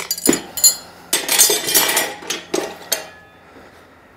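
Metal tyre levers clinking and scraping against a spoked enduro wheel rim as they are pulled out of the tyre bead: several sharp clinks, with a rough scraping stretch about a second in.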